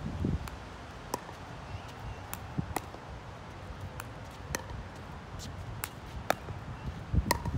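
Pickleball rally: sharp pops of the hard plastic ball coming off paddles and the court, about a dozen spaced half a second to a second apart, over a low rumble of wind on the microphone that gusts near the start and near the end.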